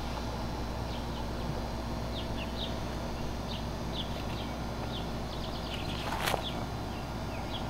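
Small birds chirping on and off over a steady low background rumble, with one brief scuff about six seconds in.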